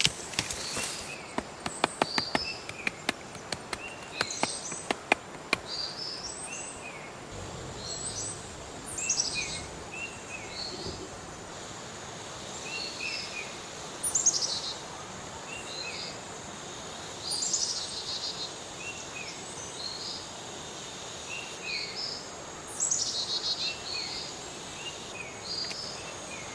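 Small birds chirping, short calls repeated every second or so with a quick falling high phrase every few seconds. In the first few seconds a series of sharp clicks sounds over them.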